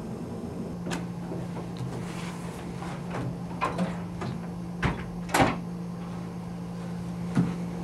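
A few scattered knocks and thuds, the loudest about five and a half seconds in, over a steady low hum.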